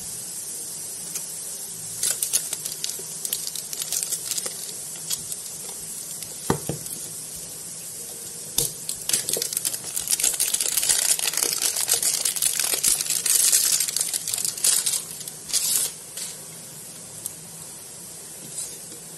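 Clear plastic shrink-wrap being picked at and peeled off a smartwatch box: crinkling and crackling. It comes in scattered spurts at first, grows dense and continuous through the middle, and dies down near the end.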